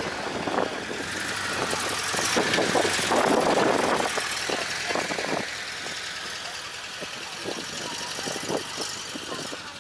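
A car's engine running as it drives past, loudest about three to four seconds in and then fading, with people's voices in the background.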